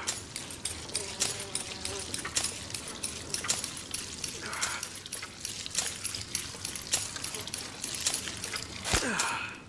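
A rapid, irregular patter of small clicks and clinks, with a brief ringing smear about halfway through and another near the end.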